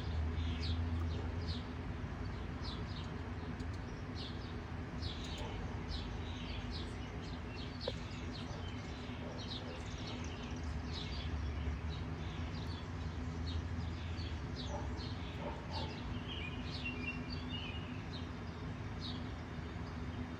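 Birds chirping: many short, high chirps at an irregular pace, over a low steady hum.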